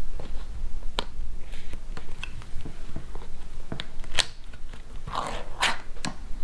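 A small sardine-style tin of emergency rations being opened: a few sharp clicks and cracks, then a short scraping tear about five seconds in.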